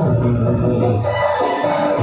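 Live Nagpuri song: a Korg electronic keyboard playing, with a man singing over it through the microphone.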